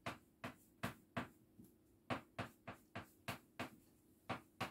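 Chalk tapping and scraping on a chalkboard as Chinese characters are written stroke by stroke: faint short clicks, about three a second.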